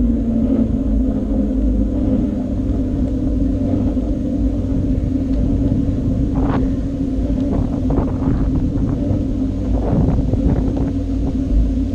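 Bicycle ride recorded on a camera mounted on the bike: a steady tyre hum and rumble with wind on the microphone, and a few sharp rattles from about halfway in.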